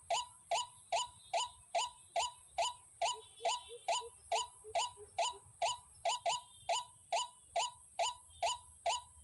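White-breasted waterhen (dahuk) calling: a short downward-sliding note repeated at a very even pace, about two and a half times a second. Fainter, lower calls come in beneath it in the middle.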